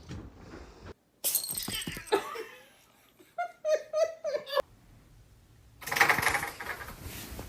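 A person laughing in a quick run of short bursts about halfway through, between louder stretches of mixed noise.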